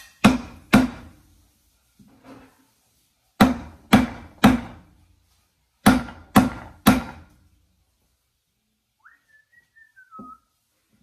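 Hammer blows on the end of a 2x4 stood in the washer tub's hub, driving a new drum bearing into the Kenmore Elite HE5t's plastic outer tub; about eight sharp strikes in sets of two or three. Near the end, a short whistle falling in pitch.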